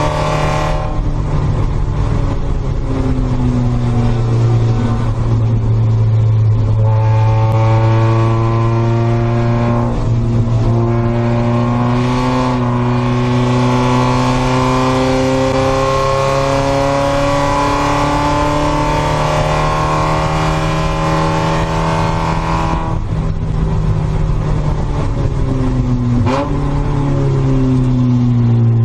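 In-car sound of a Spec Miata's four-cylinder engine at racing load. The engine note breaks and drops several times off the throttle, and rises steadily in pitch on a long pull through the middle.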